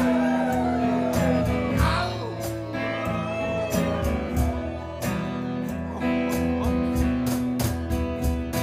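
Audience howling and yipping like coyotes over a live band's sustained guitar chord and steady drum hits. The howls slide up and down and thin out after about three seconds, leaving the band playing.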